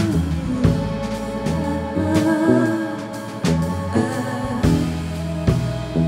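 Live band music from electric guitar, bass and a drum kit.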